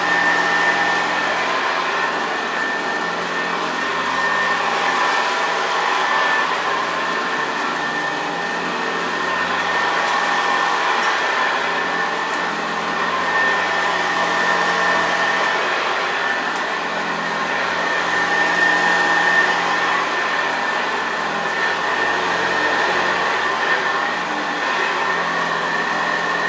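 1971 Hoover Senior 6525C upright vacuum cleaner running steadily with a constant whine. Its serviced brush roll is grinding through rice scattered on the floor.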